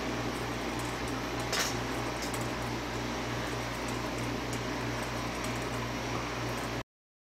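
Plasma-globe kinetic sculpture running with a steady electrical hum and hiss. There is a single click about a second and a half in, and the sound cuts off abruptly shortly before the end.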